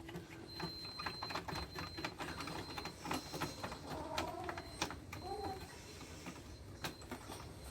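Light, irregular clicking and tapping of small metal and plastic parts being handled and worked loose while a hot water dispenser is taken apart by hand.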